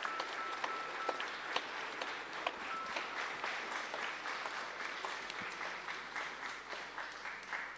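A crowd of people applauding, a dense patter of hand claps that dies away at the end.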